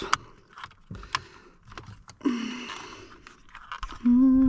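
Scattered light clicks and scrapes of hands and tools working on the car's ignition area, then a person humming one steady note near the end.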